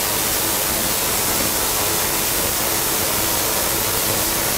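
Tesla coil running, its electric arcs striking a hand-held cluster of gas-filled discharge tubes: a steady, even hiss of spark discharge with a faint hum under it.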